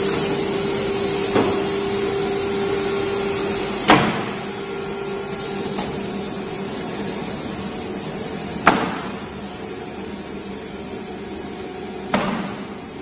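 ATC CNC router with automatic loading running: a steady hum with a held mid-pitched tone and a high hiss, broken by four sharp clacks.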